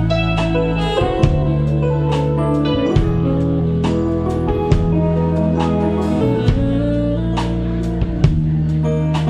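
Live wedding band playing instrumental music: a guitar melody over sustained bass notes, with a slow, steady beat accented about once a second.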